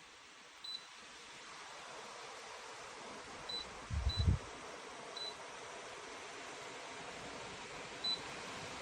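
Dreo Cruiser Pro T1S tower fan running with a steady rush of air that grows slowly a little louder, with five short high beeps from its controls as settings are changed. There is a low thump about four seconds in.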